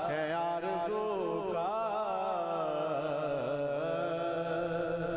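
A man singing a naat, an Urdu devotional poem praising the Prophet, solo, in long unbroken ornamented phrases that waver up and down in pitch, then holding one long note near the end.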